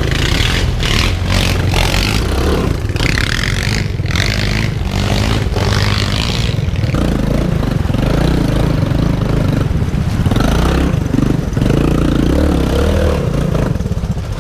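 Small off-road vehicle engine running and revving up and down unevenly, with a noisy hiss over it through roughly the first seven seconds.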